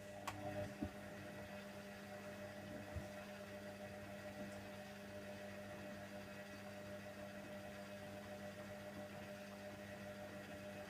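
Hoover Nextra HNWL7146 washer dryer running early in a Cotton 70 prewash wash: a steady mechanical hum, with a couple of light clicks near the start.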